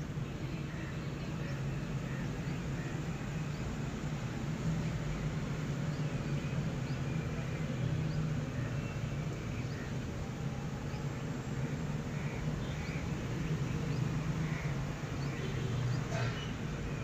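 A steady low hum under an even background noise, with faint scattered bird chirps and a brief click near the end.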